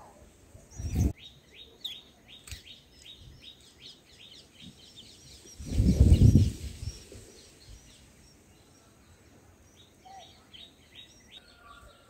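White-eye nestlings begging for food at the nest: rapid runs of short, high chirps, about four or five a second, in two spells. Two brief low rumbles, the louder one about six seconds in.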